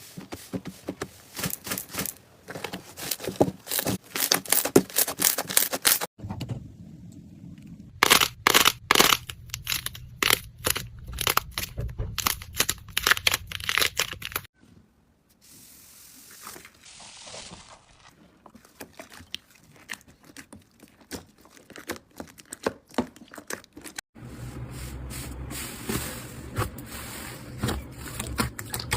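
Slime being squeezed, pressed and stretched by hand: rapid trains of crackles, pops and sticky tearing sounds. The texture changes abruptly three times, as one clip gives way to the next.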